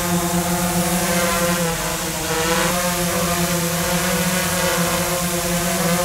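DJI Phantom 4 Pro V2.0 quadcopter hovering, its four propellers making a steady buzz with a strong low hum, measuring about 76 dBA at the meter. The pitch dips briefly about two seconds in, then comes back up.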